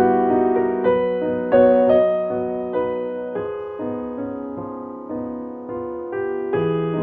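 Background music: a slow piano piece, chords and melody notes struck and left to ring.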